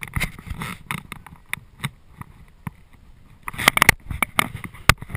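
Irregular sharp clicks, knocks and rattles close to a rider's helmet-mounted camera, with a cluster of them about three and a half seconds in: handling and movement noise while mounted on a horse.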